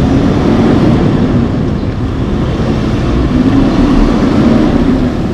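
Semi truck pulling two pneumatic dry-bulk tank trailers driving past close by: the diesel engine running steadily over loud tyre and road noise from its many axles.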